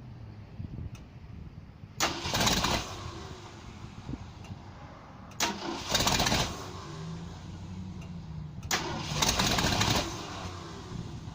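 An engine being cranked three times, about a second each time, without catching: a no-start condition.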